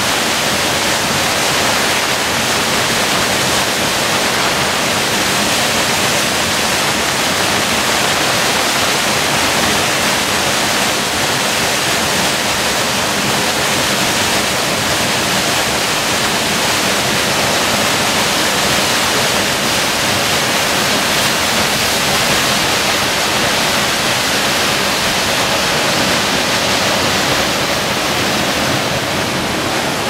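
Rain-swollen waterfall pouring over rock into a ravine: a steady, loud rush of falling water.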